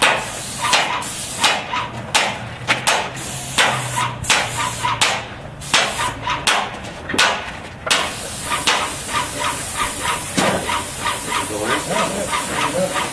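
Airless paint sprayer with a Graco RAC X 410 fine-finish tip, spraying in short trigger pulls: a quick hiss about once or twice a second. About eight seconds in it changes to a longer continuous spray hiss with fast, regular ticking.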